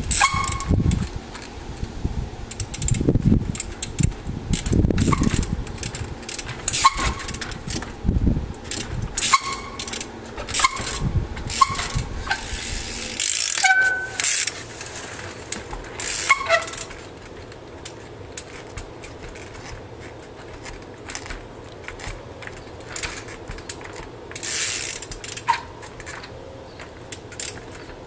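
Trials bike hopping and landing on concrete and pallet obstacles: a dense run of sharp knocks, clicks and rattles with a few brief squeaks. About halfway through it thins out to a quieter stretch with only occasional clicks.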